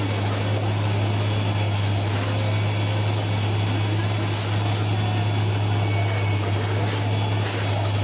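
Rail track-laying machine running with a steady, unbroken low drone.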